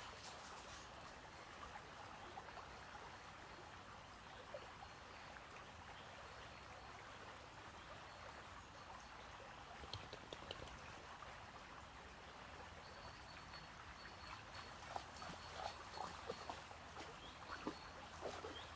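Shallow woodland stream running over stones: a faint, steady rush of water. A few faint short clicks come in the second half.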